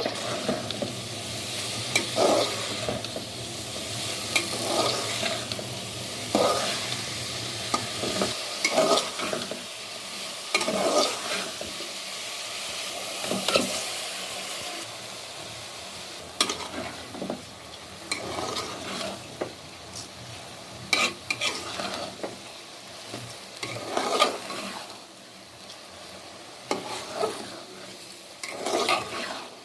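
Food frying and sizzling in a pan while a spatula stirs it, scraping and knocking against the pan at irregular strokes every second or two.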